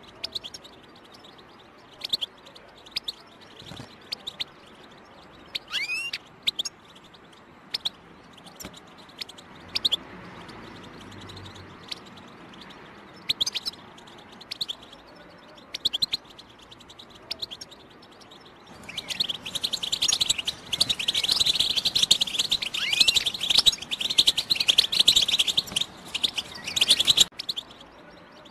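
European goldfinch 'batbata': short separate chirping calls every second or two, then a dense burst of twittering song from about two-thirds in that stops abruptly near the end. It is the call-and-song style goldfinch keepers play to stir their own birds into song.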